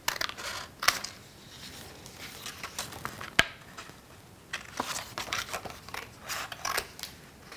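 Scissors cutting paper: irregular snips with the rustle of the sheet being turned, and one sharp click about three and a half seconds in.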